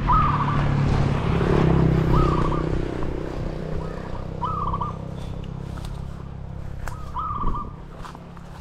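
Green pigeon call: a short warbling whistle repeated about every two seconds, over a low wind rumble on the microphone that is loudest in the first few seconds and then eases.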